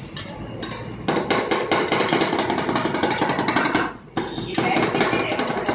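Two metal spatulas rapidly chopping and tapping on the cold steel plate of a rolled ice cream machine, breaking Oreo cookies into the ice cream base: fast runs of many strikes a second, a few scattered taps at first, a short break about four seconds in, then the chopping resumes.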